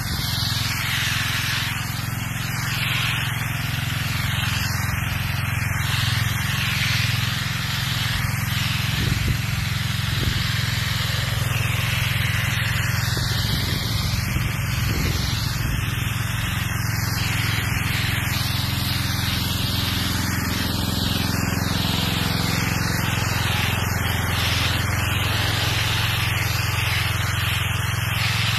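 Pressure washer spraying concrete: a steady hiss of the water jet striking the slabs over a steady low hum.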